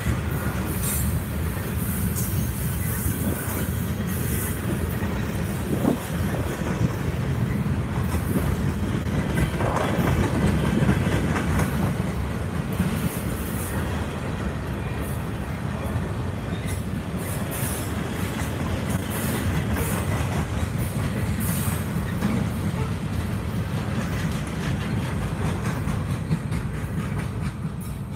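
Freight cars of a passing freight train rolling by: a steady low rumble with brief high-pitched squeals from the wheels now and then. The sound eases off near the end as the last cars go past.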